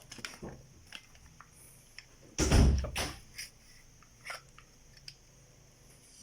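Small clicks and scrapes of a Colt M4 .22 LR rifle being taken apart by hand, its barrel and bolt assembly being removed, with one heavy thud about two and a half seconds in.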